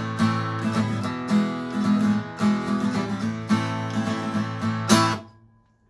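Steel-string acoustic guitar strummed in a steady rhythm, ending with one hard final strum about five seconds in that stops abruptly.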